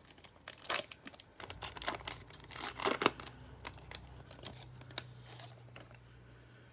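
Plastic trading-card pack wrapper being torn open and crinkled by hand, with sharp crackles over the first few seconds, then quieter handling of the cards. A faint steady low hum runs underneath from about a second and a half in.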